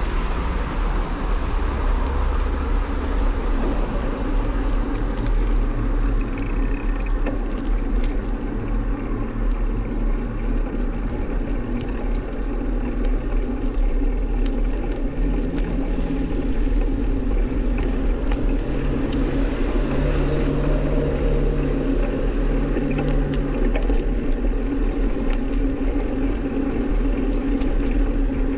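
Steady wind rushing over an action camera's microphone, with a continuous low road rumble from riding. There is no let-up.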